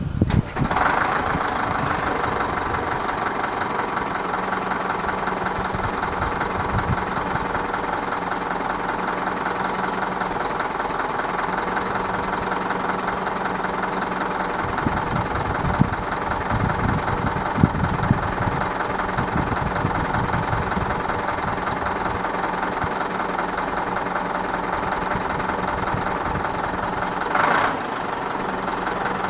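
Caterpillar 950E wheel loader's diesel engine idling steadily with a knocking clatter, a short burst of noise near the end.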